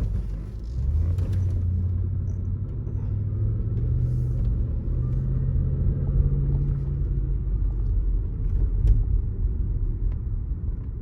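Range Rover Sport L320's supercharged V8 heard from inside the cabin while accelerating. The engine note rises steadily for several seconds, then eases off, over low road rumble. The engine is freshly tuned up and runs smooth and quiet.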